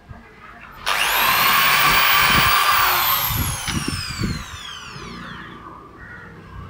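An electric power tool's motor switching on about a second in, running at speed for a couple of seconds, then winding down with a slowly falling whine.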